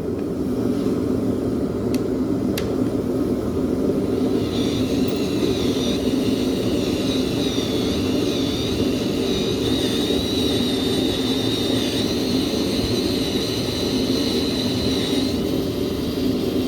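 Electric drill driving a Time-Sert drill bit into a stripped cylinder-head bolt hole in an LS engine block, its motor whining steadily from about four seconds in until shortly before the end. Under it a constant low rumble, with two sharp clicks about two seconds in.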